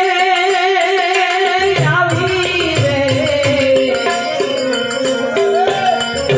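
Devotional bhajan music: a long, wavering sung note, then tabla strokes come in about two seconds in under a stepping harmonium melody.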